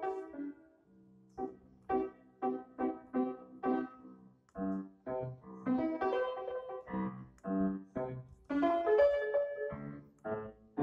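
Background piano music: a run of short struck notes, then longer held notes.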